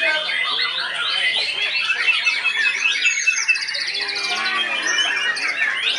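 A dense chorus of caged songbirds singing over one another in rapid whistles, trills and chattering calls, a young white-rumped shama (murai batu) among them. A fast, high trill stands out about halfway through.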